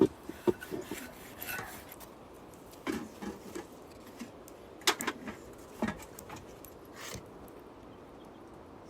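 Irregular short knocks, clicks and rubbing, like objects being handled, with the sharpest knocks about five and six seconds in.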